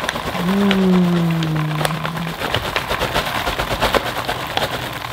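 Puffed popcorn poured from a paper bag, pattering onto a wooden board in a rapid stream of light clicks. Over the first two seconds a person's voice holds one long note that falls slightly.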